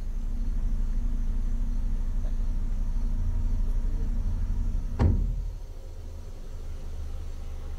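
A car's engine idles with a steady low hum, heard from inside the car. About five seconds in a car door shuts with a single loud thud, and the hum is quieter after it.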